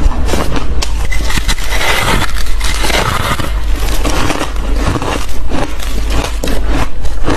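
Close-up biting and crunching of fluffy ice: a rapid, unbroken run of crisp crunches.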